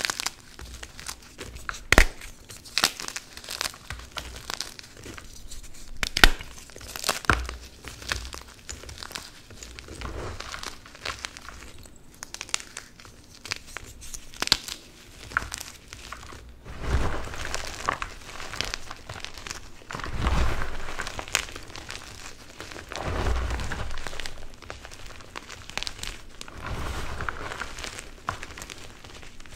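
Blocks of Plain Jane Cap gym chalk snapping and crumbling in the hands, with a few sharp cracks in the first several seconds. Later, hands squeeze and crunch through the loose chalk chunks and powder in longer, softer swells.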